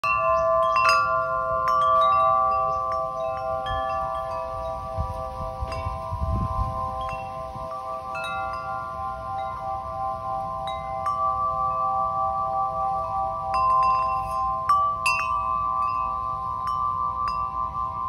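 Large wind chime of long hanging metal tubes, its central clapper knocking against the tubes at irregular moments, a second or so apart. The tubes' tones ring on and overlap into a steady, sustained chord.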